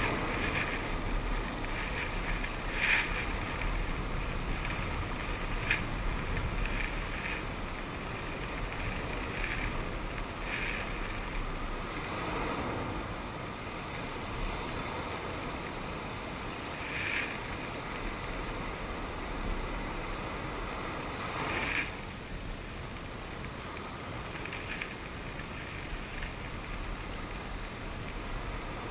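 Ocean water washing in a steady rush, with brief splashes every few seconds and a slow swell about twelve seconds in.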